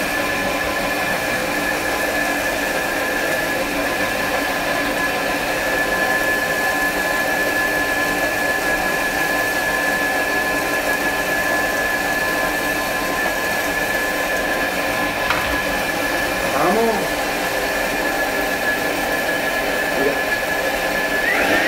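Thermomix running steadily, puréeing toasted onion with water and a stock cube into a sauce: a steady motor sound with a high hum.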